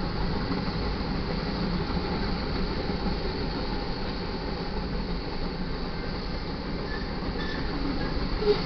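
Freight cars of a manifest train rolling past: a steady rumble of steel wheels on the rails, with a brief louder clank near the end.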